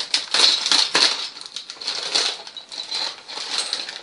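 A clear plastic bag of Lego pieces crinkling and rustling as it is handled and opened, with the small plastic pieces clicking against each other inside.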